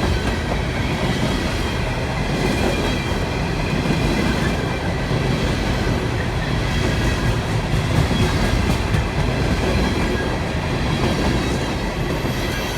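CSX coal hopper train rolling past at speed: a steady, loud rumble and clatter of wheels and hopper cars, with a thin high squeal over it.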